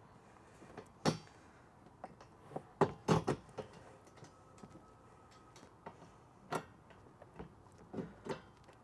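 Irregular light clicks and knocks of a bolt and washer being turned by hand through the slot of a metal MOLLE panel into its mounting point. The loudest knocks come in a cluster about three seconds in, with a few more near the end.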